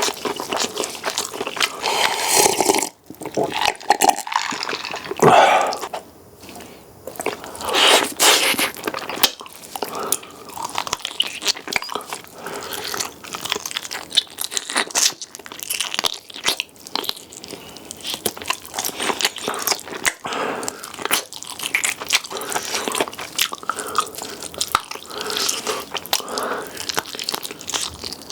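A person chewing and biting food close to a sensitive microphone, with crunching, wet clicks and mouth smacks throughout, and a few louder, longer wet bursts about five and eight seconds in.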